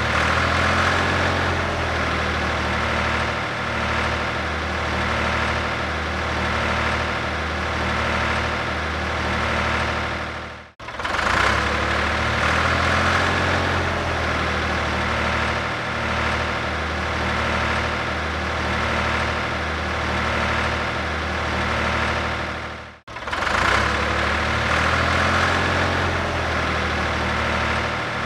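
Tractor diesel engine running steadily with a low, even beat. The sound cuts out sharply for a split second twice, about eleven seconds in and near twenty-three seconds, where the loop restarts.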